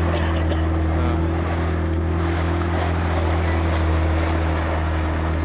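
Small open boat's motor running at a steady speed, a low even drone, over a steady rush of water along the hull.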